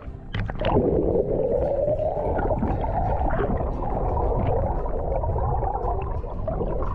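A splash as the board-mounted action camera plunges under the lake surface, then the muffled rushing and bubbling of water heard from underwater as the paddleboard glides along.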